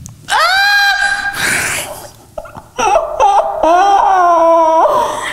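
A young woman's high-pitched squeals and laughter: one long held squeal, a breathy pause, then a longer wavering cry that falls in pitch and stops shortly before the end.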